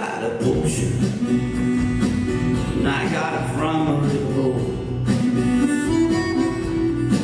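Live Cajun band music: accordion carrying the tune over strummed acoustic guitar, electric bass and drums, with fiddle.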